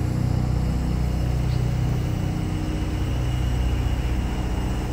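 Steady low rumble of city traffic, with no distinct single event.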